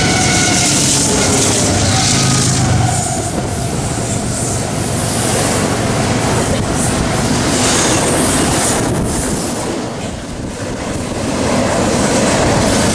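Norfolk Southern freight train passing close by: the diesel locomotives' engines run for the first few seconds, then double-stack intermodal cars go by with a steady rumble and clatter of wheels on rail.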